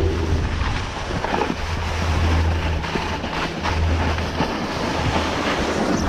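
Wind buffeting the camera microphone in a low rumble, over the steady hiss of a snowboard sliding and scraping across packed snow, with a few sharper scrapes about halfway through.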